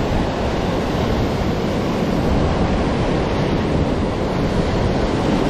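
Ocean surf breaking and washing over a rocky shore, a steady rushing noise with heavy wind buffeting the microphone.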